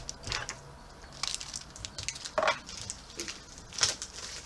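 Small cardboard juice boxes being pulled out of their plastic-wrapped multipack and handled: about five short crinkles and scrapes.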